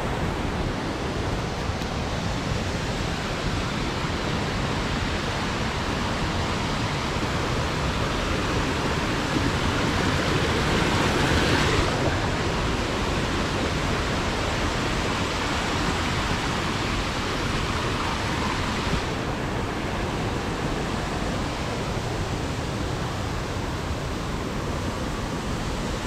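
Steady rushing of a waterfall and its rocky stream, swelling a little for a couple of seconds before the middle.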